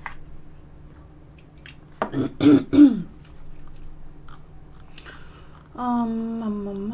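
A woman's voice: a short throat-clearing sound about two seconds in, then a long, steady hummed "mmm" starting near the end.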